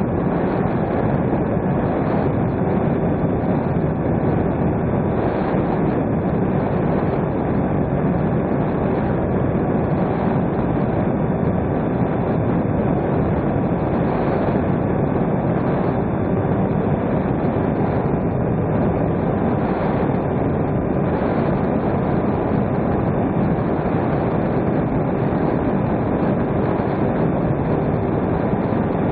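Electric RC airplane's motor and propeller running steadily in cruise, a constant whirring drone mixed with wind rush over the onboard camera's microphone.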